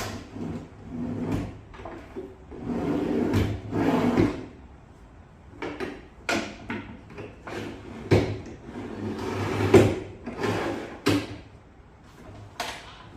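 Wooden parts being handled and slid on a woodworking table: irregular knocks and sliding, scraping rubs, with no saw motor running.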